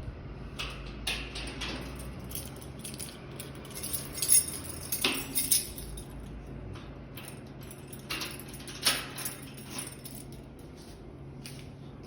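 Scattered light clinks and knocks of household clatter, bunched about four to six seconds in and again around nine seconds in, over a low steady hum.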